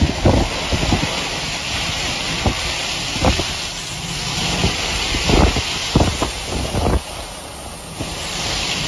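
Strong storm wind rushing in gusts and buffeting the microphone, with irregular low thumps throughout.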